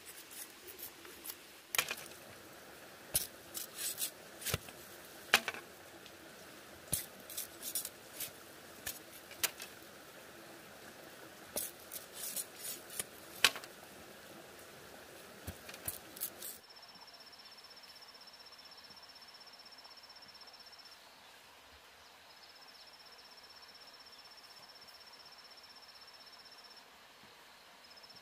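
Large knife splitting and trimming green bamboo into thin strips: a string of irregular sharp cracks and clicks. About two-thirds of the way through these stop, and a steady high insect trill takes over, breaking off twice.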